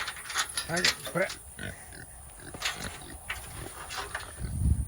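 Kunekune pig grunting about a second in, among rustling and scattered clicks. A loud low thump comes near the end.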